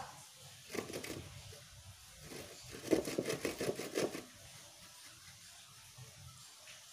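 A steel file rasping across the teeth of a wood hand saw. There are a couple of strokes about a second in, then a quick run of short strokes, about eight a second, from three to four seconds in.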